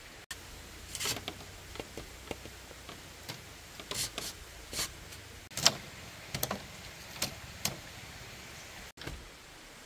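Split-bamboo strips clacking and scraping against the bamboo frame as they are slid into the wall. There are irregular sharp clicks and knocks, the loudest a little past halfway.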